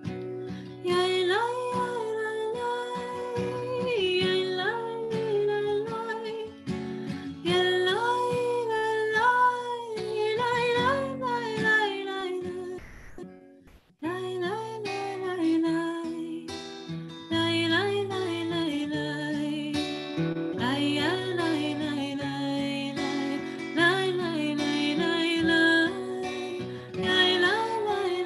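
Slow background music led by acoustic guitar with a sliding melody line over it; it fades to a brief pause about halfway through, then starts again.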